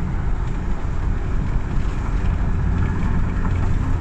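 Steady low rumble of a car on the move, heard from inside the cabin: road and running noise as it drives down a steep mountain road.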